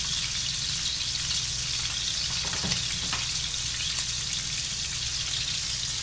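Fish frying in oil in a stainless steel pan: a steady sizzle, with a light clink or two about halfway through as a pot lid is moved.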